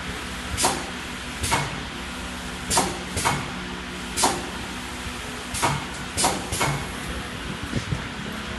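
Steady machinery hum with short, sharp bursts at irregular intervals, about one every half-second to second and a half, as a muffin cup mold is handled and fitted onto a pneumatic paper cup forming machine.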